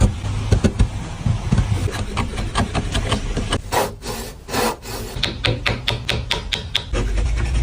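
Hand tool scraping and rasping across wood in short repeated strokes, quickening to about three strokes a second in the second half.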